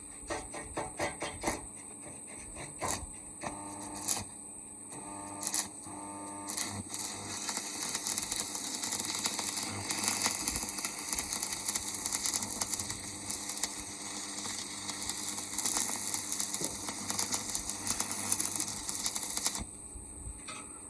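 Electric arc welding on a plough's steel parts: the arc crackles and sizzles steadily for about twelve seconds, then cuts off abruptly. Before it starts there is a run of sharp clicks and taps.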